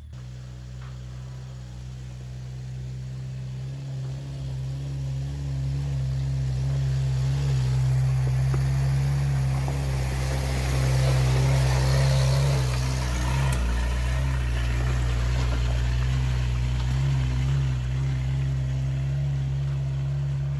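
A vehicle engine running steadily at low speed on a dirt trail, a low even hum that grows louder over the first several seconds. A rushing hiss swells and fades around the middle.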